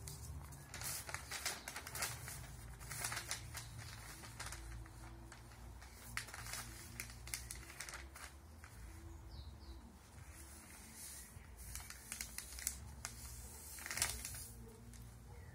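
A sheet of newspaper rustling and crinkling in short, uneven bursts as it is folded and creased flat by hand, the loudest rustle near the end.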